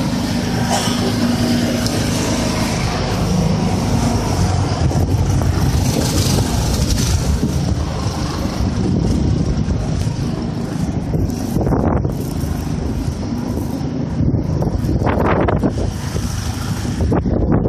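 Blizzard wind gusting and buffeting the microphone: a heavy, low rumbling noise that rises and falls, with a faint steady hum in the first few seconds.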